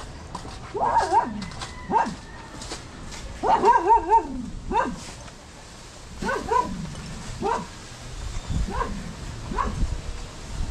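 A dog barking repeatedly, roughly one bark a second, with a quick run of several barks a little over three seconds in.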